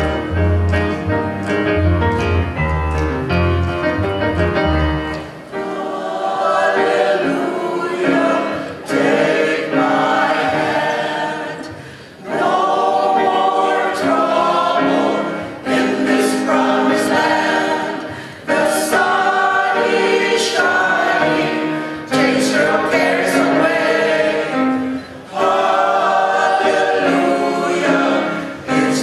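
Mixed choir of men and women singing with piano accompaniment. Deep bass notes sound for the first five seconds, then drop away, leaving the voices singing in short phrases with brief breaks between them.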